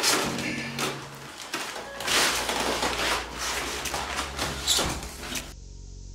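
Handling noise from the oven and its packaging being moved: knocks, clunks and scraping. Background music comes in near the end.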